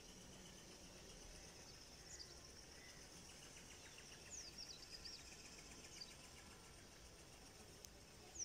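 Faint rural outdoor ambience: birds giving short quick chirps now and then, a cluster about four seconds in and again at the end, over a steady high insect hiss.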